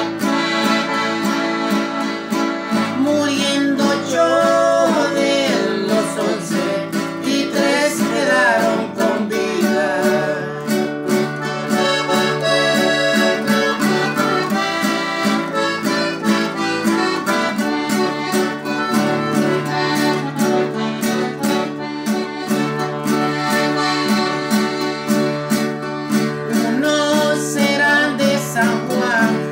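Live acoustic duo: a piano accordion plays a melody over a strummed acoustic guitar, with a steady beat.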